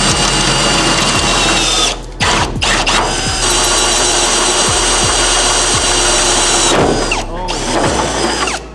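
Power drill running in bursts, most likely drilling holes for hood pins. It cuts out briefly about two seconds in, then runs steadily again until near the end.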